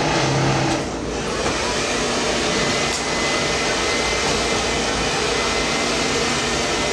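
Steady, loud rushing noise of a motor-driven air blower, coming in about a second in and holding even, with a faint thin whine over it.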